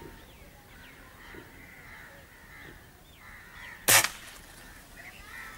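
A .22 Diana 34 Classic break-barrel spring-piston air rifle fires one sharp shot about four seconds in. Birds call faintly in the trees throughout.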